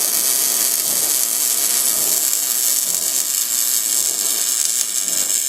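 MIG welding arc running a continuous bead on steel, a loud, steady, high sizzling hiss.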